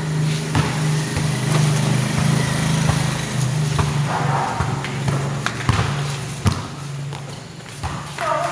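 A basketball bouncing on a court, a few scattered thuds, over a steady low hum.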